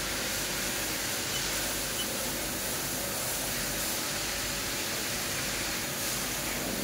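Steady hiss with a faint low hum: background noise of a powered-up CNC vertical machining centre standing with its spindle stopped.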